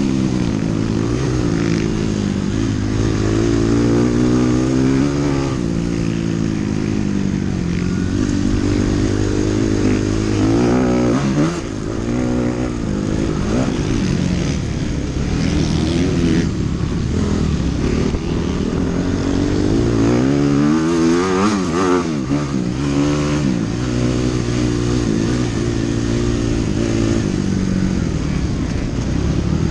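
Dirt bike engine running hard under the rider, its pitch climbing and dropping again and again as the throttle is worked and gears change, with a brief drop in level about twelve seconds in.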